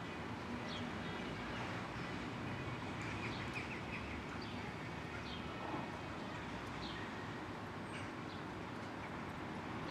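Birds chirping in short high calls every second or so, with a brief run of quick twittering about three seconds in, over steady outdoor background noise.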